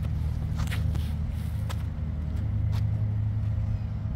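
Footsteps scuffing and tapping on a concrete tee pad during a disc golf run-up and throw, a few sharp sounds in the first three seconds, over a steady low rumble.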